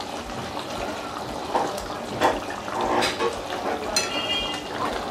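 Spatula stirring through boiling fish-curry gravy in a metal kadai, the liquid bubbling and sloshing, with a few short scrapes and knocks of the spatula against the pan.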